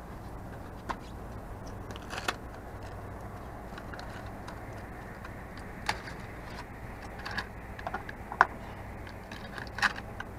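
Scattered clicks and light metallic rattles of fishing gear being handled, a dozen or so irregular knocks with the sharpest about eight seconds in, over a steady low hum.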